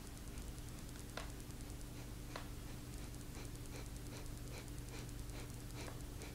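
Puppy snoring softly in its sleep: two sharper clicky snuffles in the first few seconds, then a quicker run of small clicks, about two to three a second, over a steady low hum.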